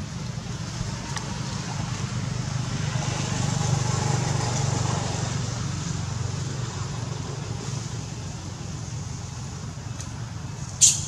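Low rumble of passing road traffic that swells about four seconds in and then fades, with one sharp click near the end.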